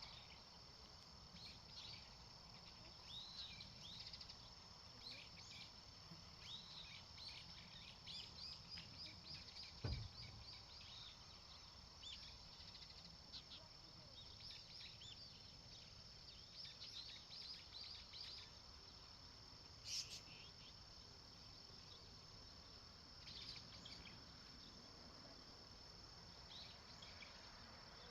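Faint countryside ambience: birds chirping in many short calls over a steady high-pitched insect drone. A low thump comes about ten seconds in and a sharp click about twenty seconds in.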